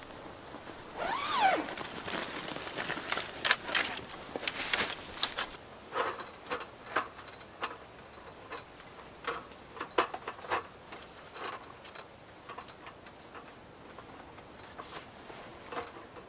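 A zip and rustling handling of a carry bag, then scattered light clicks and knocks as a folding camp table is put up.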